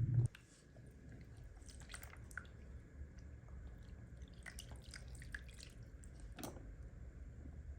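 Scattered light clicks and ticks over a low steady hum, after a loud low rumble cuts off suddenly just after the start.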